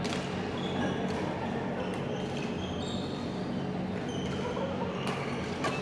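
Badminton rally in a large echoing hall: several sharp racket-on-shuttlecock hits and short squeaks of shoes on the court floor, over a steady low hum and distant voices from other courts.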